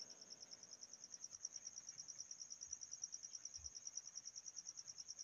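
Faint, high-pitched chirping trill, pulsing evenly about ten times a second without a break, typical of a cricket.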